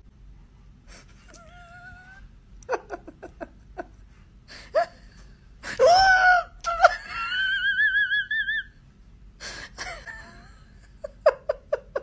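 A person laughing hard: high-pitched wheezing squeals and gasps, with a quick run of short laughs near the end.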